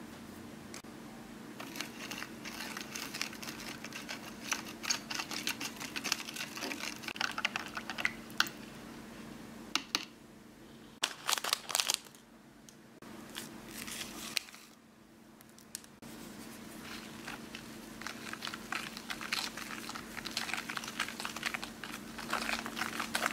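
Handling and crinkling of a plastic candy-powder packet, snipped open with scissors, and a plastic stirrer clicking and scraping in a glass bowl as the shake powder is mixed into the liquid to whip up foam. The clicking comes in two long busy stretches with a quieter pause between them, over a low steady hum.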